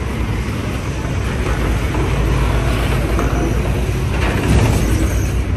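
Steady low rumble of a vehicle engine, with a hiss of noise above it.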